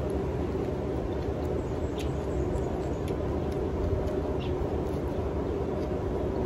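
A steady low background rumble with a faint hum, with a few faint short clicks of someone chewing raw vegetables and rice.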